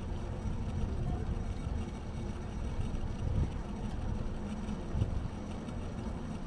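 Steady low rumble of city street noise heard from a moving bicycle, with wind on the microphone.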